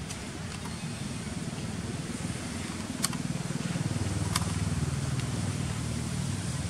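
Low, steady rumble of a motor vehicle's engine, growing louder about halfway through, with two sharp clicks, one about three seconds in and one a second and a half later.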